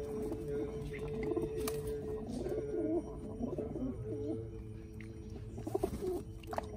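Buddhist temple chanting (yeombul), a long held note with wavering turns, mixed with rock pigeons cooing. A few quick splashes and flutters from bathing pigeons near the end.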